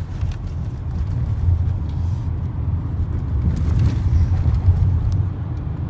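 A car's engine and tyre noise heard from inside the cabin: a steady low rumble while driving through a road tunnel in traffic.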